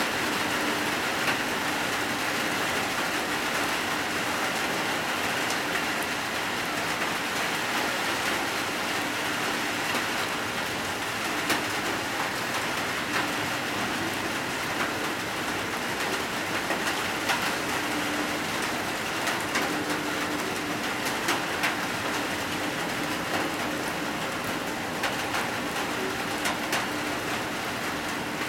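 Heavy rain pouring steadily: a dense, even hiss with frequent sharp drop hits splashing close by.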